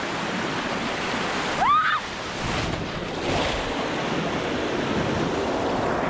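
Fast water rushing and splashing close over a waterproof camera sliding down a natural rock water slide at a waterfall, a steady loud wash. One short rising squeal cuts through it about one and a half seconds in.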